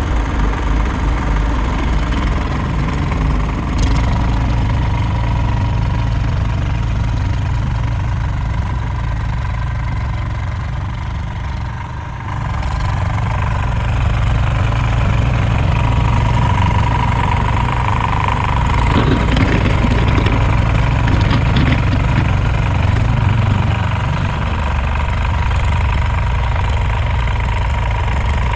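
Tractor engine running steadily while plowing snow, easing off briefly about twelve seconds in, with a thin steady whine over the engine.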